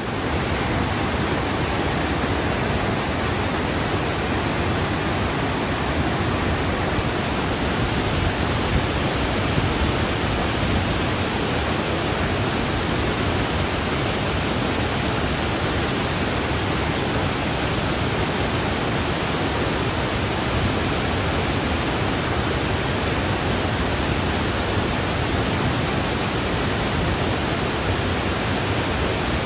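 Beaver Falls on Havasu Creek, water pouring over a series of travertine ledges in a steady, loud rush of white noise.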